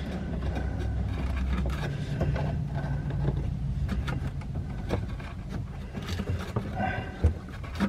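Scattered clicks and knocks of hands working a plastic drain-pipe coupling into place, over a steady low hum.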